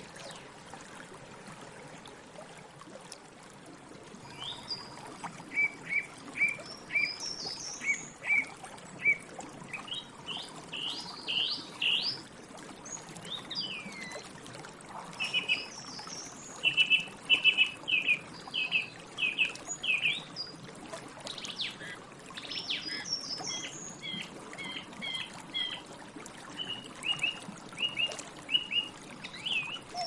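A song thrush singing. It starts about four seconds in, with short phrases of clear notes, each phrase repeated several times before the next.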